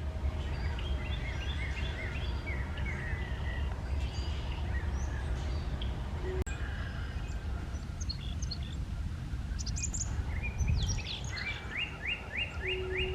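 Small songbirds chirping and calling, ending in a quick run of about nine repeated notes near the end, over a low steady rumble.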